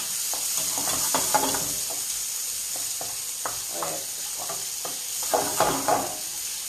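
Prawns sizzling in a hot frying pan with a steady hiss while they are stirred, the spoon scraping and knocking against the pan at irregular moments.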